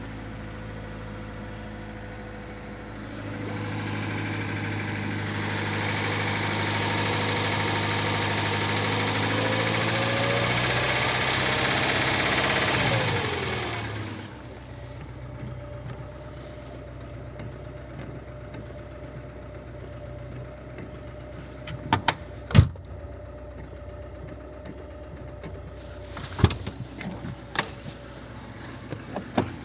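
VAZ-2107 four-cylinder engine running with a knock its owner cannot identify: revs are raised and held for about ten seconds, then drop back to a steady idle. Several sharp knocks stand out in the second half.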